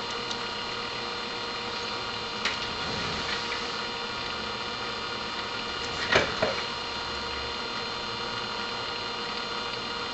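Light clicks of small metal hand tools against a circuit board during hand soldering of surface-mount parts: one about two and a half seconds in, and a short cluster of two or three around six seconds. Under them runs a steady hiss with a faint steady whine.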